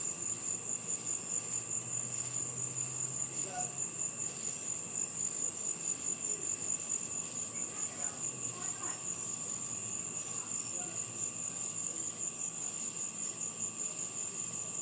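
Night insects chirping steadily in a fast, even pulse, a high-pitched trill that carries on without a break.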